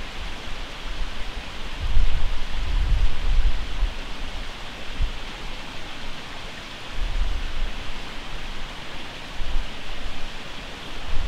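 Steady outdoor hiss with low wind rumble on the microphone, coming in gusts about two seconds in and again around seven seconds.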